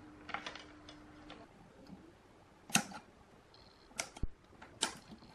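Scattered sharp clicks and taps from handling amplifier parts: a capacitor circuit board lifted on its wires, and pliers working on the chassis wiring. The loudest click comes a little under three seconds in. A faint steady hum stops about a second and a half in.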